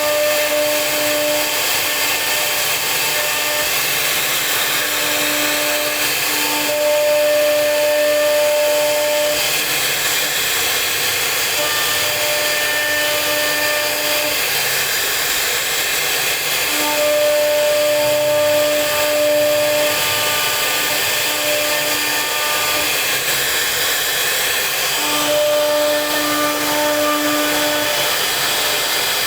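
CNC router spindle running continuously while carving wood: a steady hiss of cutting under a whine whose tone fades in and out every few seconds as the bit works.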